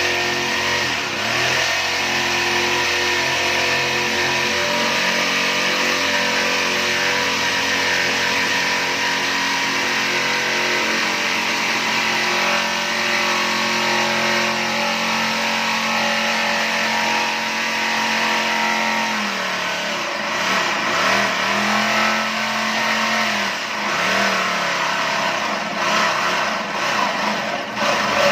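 A motor running at a steady speed, then slowing down about two-thirds of the way through, speeding up again briefly and slowing once more.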